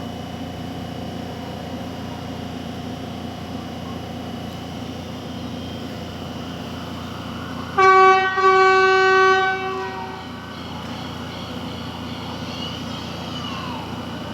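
Horn of a Metrotren Rancagua commuter train sounding, a short blast followed at once by a longer one of about two seconds that bends down in pitch as it ends, over the steady noise of the line.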